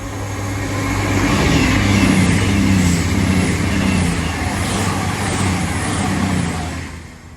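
CrossCountry Voyager diesel multiple unit passing at speed: its underfloor diesel engines hum under a rush of wheel and rail noise, building over the first couple of seconds and dying away near the end.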